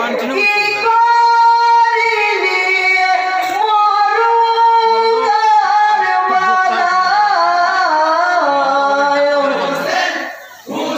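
A man singing a marsiya lament solo and unaccompanied, in long held notes with wavering ornaments; the melody slides gradually lower and the voice breaks off about ten seconds in.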